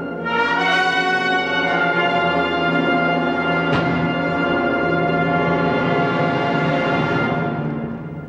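Concert band playing loud, held, brass-heavy chords, with a sharp stroke about four seconds in. The chord fades away near the end.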